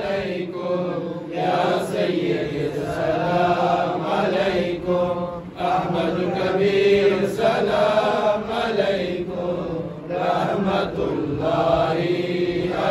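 Men's voices chanting a Salam, devotional salutations to the Prophet recited standing, unaccompanied. The chant comes in long melodic phrases with short breaks between them.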